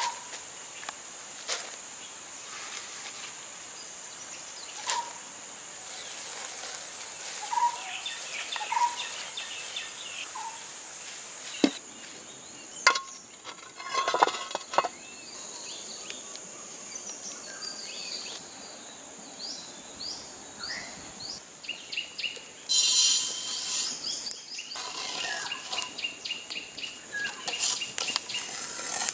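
Steady high buzzing of insects with occasional birds, over soft rustling of hands tossing chopped green beans in a clay pot. After a sudden break, a loud rush of mustard seeds onto a cast iron pan, then repeated scraping strokes as a steel spoon stirs the seeds on the pan over a wood fire.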